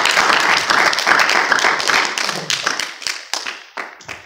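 A congregation applauding. The dense clapping thins out to a few last claps and stops near the end.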